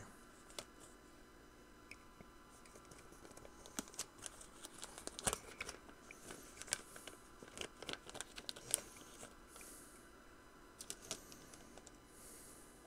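Faint crinkling and rustling of a plastic anti-static bag being handled, with scattered small clicks and a few soft swells of crinkle.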